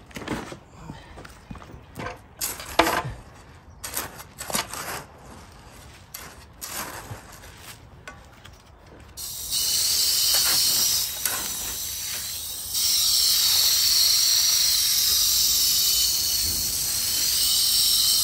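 A few scattered knocks and clicks of handling, then about nine seconds in a garden hose spray nozzle starts hissing as it sprays water onto a dry concrete mix. The spray gets steadier and louder a few seconds later.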